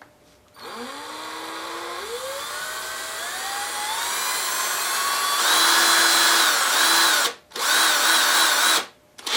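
Motor of a 19.2-volt Craftsman cordless drill, its brushes just cleaned, starting on low and winding up in a rising whine to full speed about five seconds in, then cutting out briefly twice near the end. The drill has been stopping and going, which the owner puts down to the brushes or the trigger.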